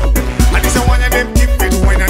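Soca song playing, with a heavy bass and a steady, driving beat.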